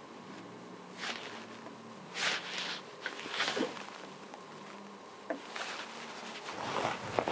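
Stylus on an interactive touchscreen whiteboard: a few short scratchy strokes and light taps, spaced a second or so apart, over a faint steady hum.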